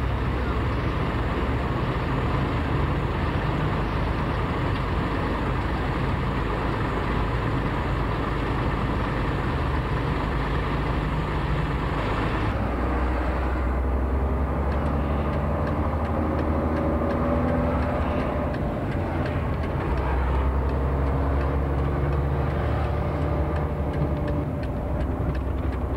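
Truck engine heard from inside the cab, running steadily at first. From about halfway through, the engine note rises several times over as the truck accelerates.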